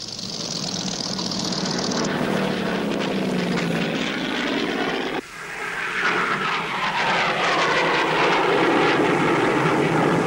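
Piston-engined propeller aircraft sounds, the engine note falling in pitch as the plane goes by. It cuts off suddenly about five seconds in, and a second aircraft engine drone swells up and holds.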